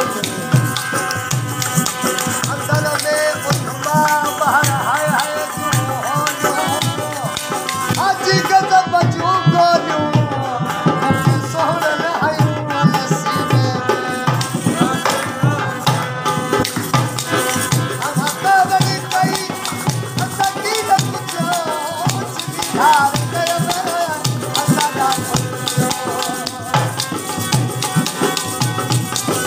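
Folk music: a barrel hand drum (dholak) keeps a steady beat under a rattling percussion and a wavering melody.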